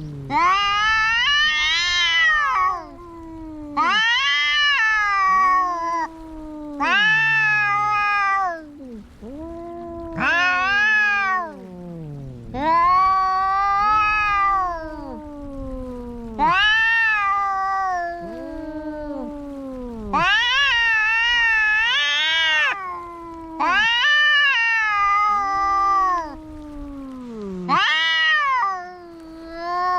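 Cats caterwauling in a fight: a string of long, wavering yowls, each lasting a couple of seconds and rising and falling in pitch, following one another with short gaps, with lower moaning calls sliding downward beneath them.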